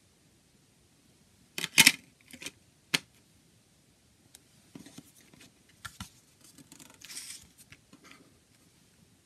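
A CD pressed onto the plastic hub of a cardboard digipak's tray, with a few sharp clicks. Then the card panels are folded shut and shifted on a table, with soft scraping and rustling and a brief swish.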